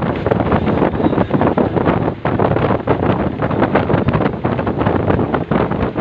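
Loud rushing of a bus travelling at speed, with wind buffeting the microphone.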